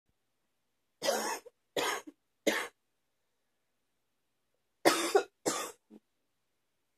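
A woman coughing: three coughs in quick succession about a second in, then after a pause two more.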